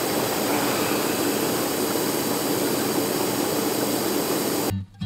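Inflatable hot tub's air-bubble jets running: a steady, loud rush of blower air and churning water. It cuts off abruptly near the end as strummed guitar music begins.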